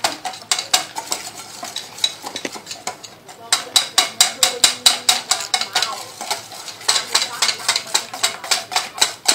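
Pancake batter being beaten by hand in a stainless steel bowl: a metal utensil clinks rapidly and steadily against the bowl's sides, about five strokes a second, easing briefly about three seconds in.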